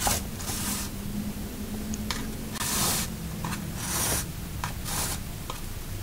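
Paper sheets rustling and rubbing as a large needle and thread are worked through a stack of pages, in a few short swishes, over a faint steady hum.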